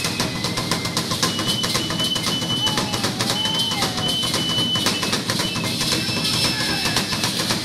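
Drums and percussion play a fast, dense rhythm for a Maya warrior dance. A brief wavering tone comes in about three seconds in.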